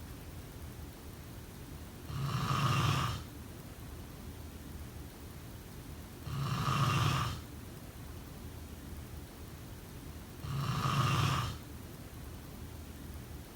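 A person snoring: three snores evenly spaced about four seconds apart, each lasting about a second, with a steady faint hiss between them.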